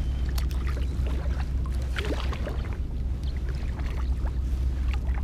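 Light irregular ticks and small water sounds against the plastic hull of a sit-on-top kayak, over a steady low rumble.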